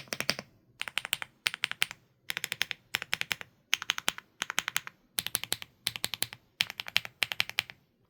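Typing on a WAVE75 mechanical keyboard with stock green bamboo (青竹) switches: quick runs of crisp keystrokes, several per run, with short pauses between. The stock build gives a moderately soft feel and a crisp, mid-pitched clack.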